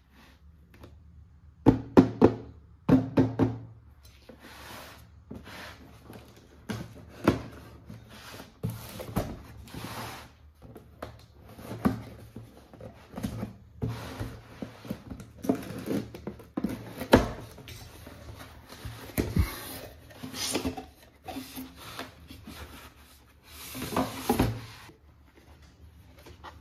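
Small objects, most likely toy pieces, being handled and set down as a box is opened: irregular clicks, knocks and short rustles. The loudest cluster of knocks comes about two seconds in.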